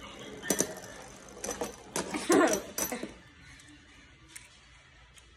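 Hard plastic clicks and knocks as a spinning Beyblade top is stopped by hand and lifted out of its plastic stadium: several sharp clicks in the first three seconds, then much quieter.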